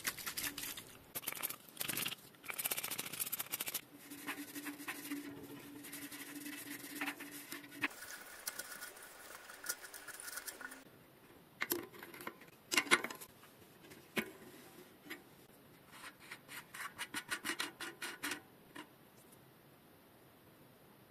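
Cleaning the outside of a Shimano HB-TX505 bicycle front hub: irregular scrubbing and rubbing strokes in bursts, with a quick rhythmic run of strokes, about four a second, a few seconds before the end.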